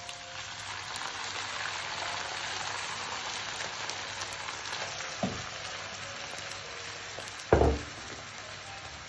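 Onion and garlic frying in olive oil in a pan, the sizzle picking up as tomato sauce is scraped in with a spatula. A short knock about five seconds in and a louder thump near the end.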